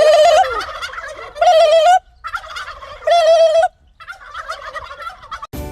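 Repeated warbling animal calls: three loud calls with a quick wobble in pitch, with quieter calls between them.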